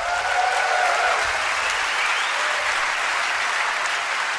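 Large theatre audience applauding steadily, with a few cheers near the start.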